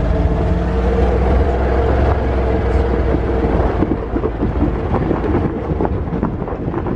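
Ranger side-by-side utility vehicle's engine running under load with a steady low drone, over rumble and rattle from the rough trail. From about halfway on, the drone gives way to more knocks and rattles.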